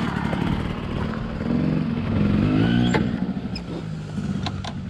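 A motor vehicle engine running, its pitch rising as it revs up from about a second and a half in to about three seconds in. A few sharp clicks come near the middle and toward the end.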